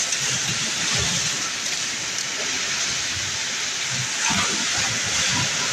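Steady rushing noise, with a few soft low knocks about four to five seconds in.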